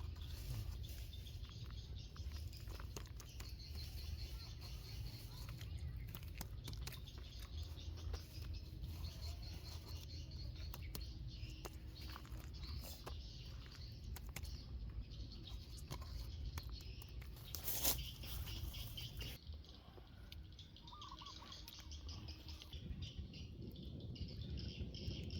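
Birds chirping over a low steady rumble, with many scattered small clicks and crackles and one louder burst of crackling about three quarters of the way in.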